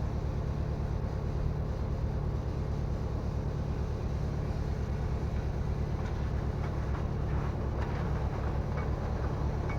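A steady low mechanical rumble, with light metallic clinks of hand tools from about six seconds in.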